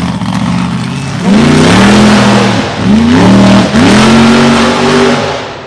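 The 1,500 hp Intruder 2.0 mega truck's engine revving hard in three surges. Each one climbs in pitch and drops off, and the sound fades near the end.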